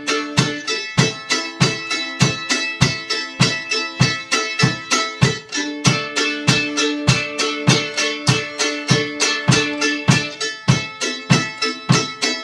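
Live folk song on an acoustic plucked-string instrument, picked in a steady rhythm of about three strokes a second under held notes.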